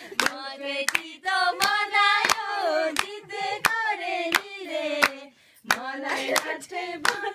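People singing a song with steady rhythmic hand-clapping, about three claps a second. Singing and clapping pause briefly about five and a half seconds in, then resume.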